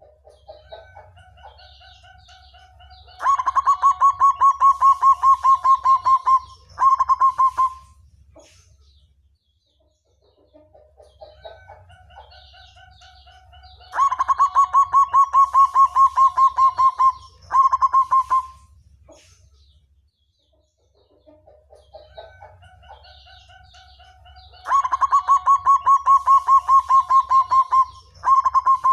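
Zebra dove (black perkutut) singing its cooing song three times. Each phrase opens with soft rising coos and breaks into a rapid, even trill of short notes lasting about three seconds, then a brief pause and one short final burst.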